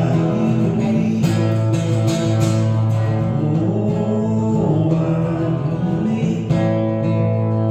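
Acoustic guitar strumming chords, with a man's voice singing over it in places.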